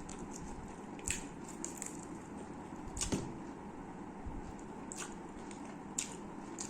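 Close-up eating sounds: food being handled and bitten, with four or five short crisp clicks or crunches over a steady low hiss, the strongest about three seconds in.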